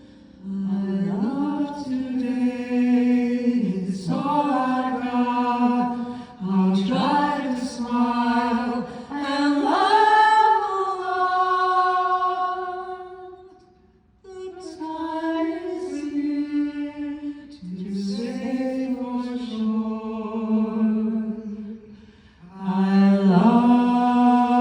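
Unaccompanied singing of one melody line in long phrases with held notes, with a pause about two-thirds of the way through and a short breath near the end.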